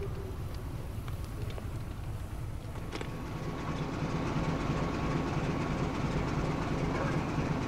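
Diesel locomotive engine running as it rolls slowly closer, a steady low rumble that grows a little louder about halfway through, with a faint steady whine over it. A single sharp click about three seconds in.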